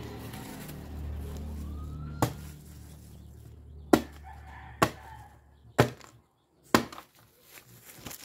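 A bolo knife chopping into a whole peeled jackfruit: five sharp chops, about one a second, starting about two seconds in.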